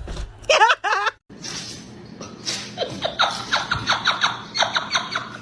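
A person laughing in a run of short, quick bursts, about four a second, after a brief wavering high-pitched cry about half a second in.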